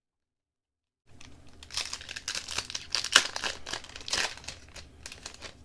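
Foil wrapper of a hockey card pack crinkling and tearing as it is opened by hand, in quick irregular bursts, starting about a second in.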